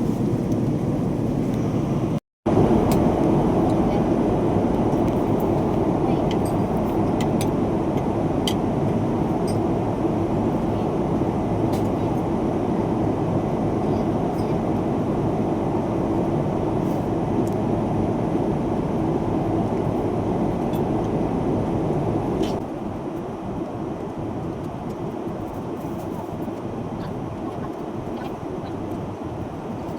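Steady engine and road or air noise heard inside a moving vehicle. It breaks off in a brief dropout about two seconds in and drops in level near the end.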